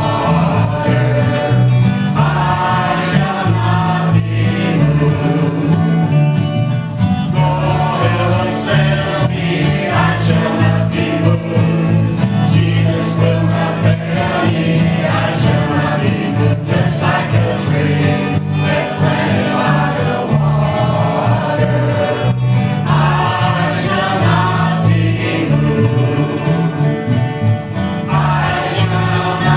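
Mixed men's and women's vocal group singing a gospel song together through microphones, accompanied by acoustic guitar.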